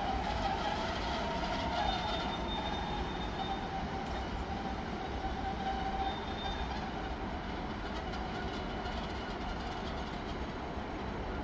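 Freight train rolling past on the rails: a steady rumble of wagons with a whining tone from the running gear that fades after about six seconds.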